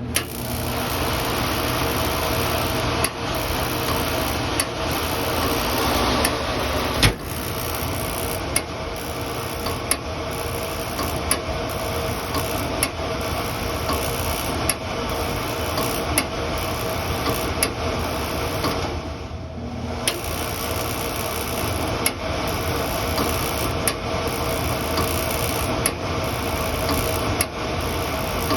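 A machine running steadily after a hard start, with a low hum and sharp clicks every second or two.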